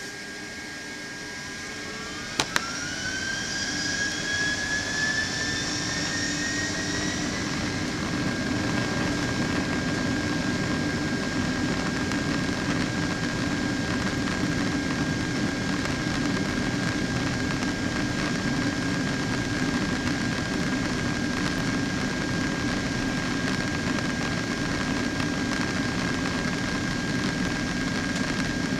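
Boeing 767-300ER jet engines spooling up for takeoff, heard from inside the cabin: a fan whine rises in pitch and the noise grows over the first several seconds, then holds at a steady level as the aircraft rolls down the runway. Two sharp clicks come about two seconds in.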